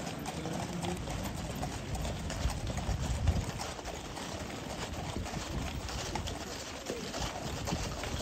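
Hooves of a column of cavalry horses clip-clopping at a walk on gravel, many short clops overlapping, with birds calling among them.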